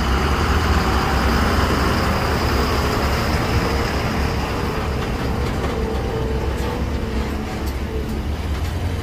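A heavy vehicle's engine running with a steady low rumble, mixed with road traffic noise.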